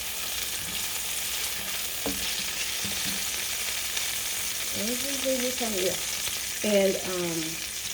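Peppers and onions frying in oil in a pan, a steady sizzle throughout, with one sharp click about two seconds in. A voice sounds briefly twice in the second half.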